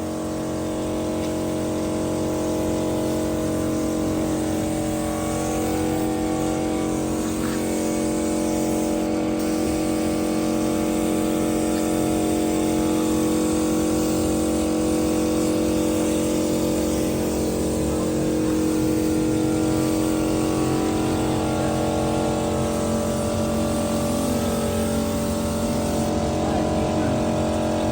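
Car engine running steadily at a constant speed for the whole stretch.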